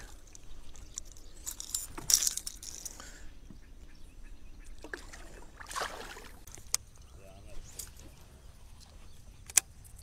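Water splashing beside a kayak as a released bass drops back in, then scattered clicks and knocks of fishing gear being handled, with two sharp clicks near the end.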